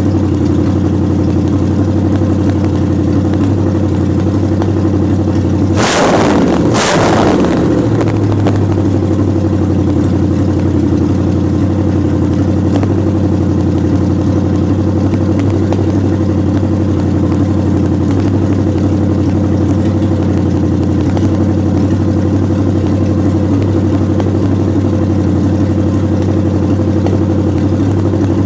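Engine of a 1929 Chrysler idling steadily while warming up. A short loud rush of noise comes twice, about six and seven seconds in.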